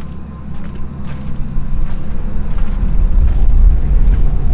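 A vehicle engine idling steadily, with a low rumble that swells and grows louder about a second and a half in.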